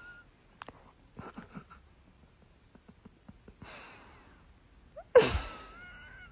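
Husky huffing through its nose: a softer breathy exhale just before four seconds in, then a sudden loud snort a little past five seconds, with a thin whistling tone that rises slightly as it fades.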